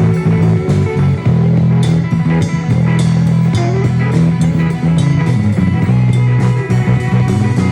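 A band jamming without vocals: guitar, bass guitar and drum kit playing a steady rock groove with a regular drum beat.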